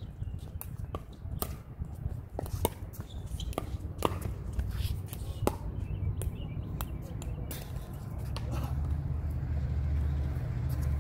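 Pickleball rally: sharp, irregularly spaced pops of paddles striking a plastic pickleball, with a low rumble that grows louder near the end.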